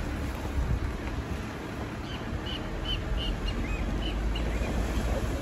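A bird calling a quick run of short, high chirps, starting about two seconds in, over the steady low rumble of a vehicle.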